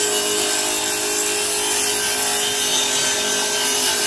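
Table saw running and ripping a sheet of plywood: a steady motor whine under the continuous noise of the blade cutting through the wood.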